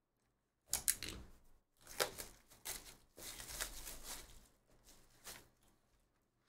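Plastic shrink wrap on a sealed trading-card box being slit and pulled off, crinkling and rustling in irregular bursts that begin about a second in and die away near the end.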